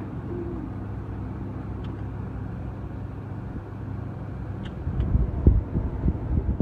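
A steady low rumble like a running engine, joined about five seconds in by louder, irregular low buffeting.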